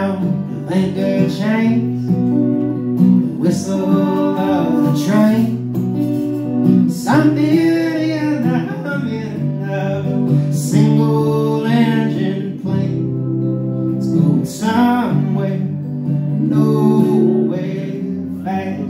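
Live band music: a man sings over his strummed acoustic guitar, with an electric guitar playing along.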